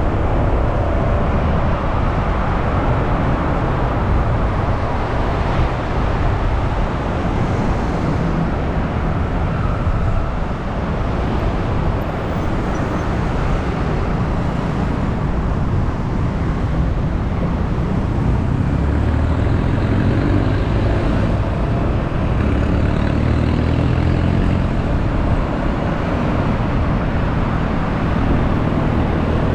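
Motorcycle taxi heard from on board while riding in traffic: a steady, loud mix of engine and road noise, with the engine note climbing a few times in the second half as the bike picks up speed.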